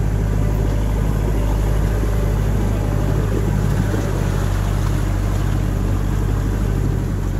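A vehicle's engine running steadily with a deep, constant drone as it drives over a muddy, rutted track.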